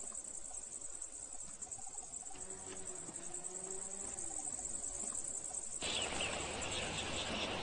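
Insects chirring: a steady, high, pulsing buzz. About six seconds in it cuts abruptly to a louder, steady rushing noise, with higher chirps above it.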